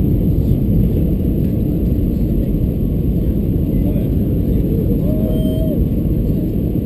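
Steady low rumble of an Airbus A320-214's CFM56 engines and airflow, heard inside the passenger cabin.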